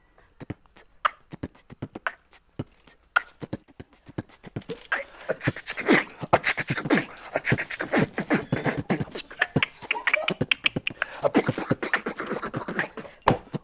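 A man beatboxing, making kick, snare and click sounds with his mouth: sparse single hits at first, then a dense, fast beat from about five seconds in.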